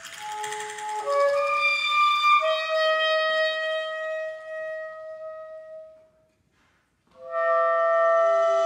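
Soprano saxophone playing slow, long-held notes that overlap and layer with the piece's live electronics. The sound breaks off into about a second of silence some six seconds in, then held notes start again.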